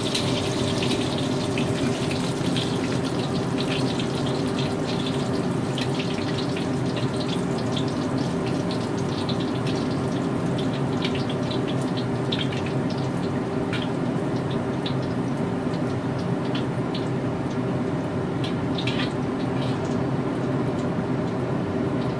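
Hot oil sizzling and crackling in a wok as pieces of salt-and-pepper fried chicken and basil leaves deep-fry, over a steady low hum. The crackles thin out in the second half as the chicken is lifted out of the oil.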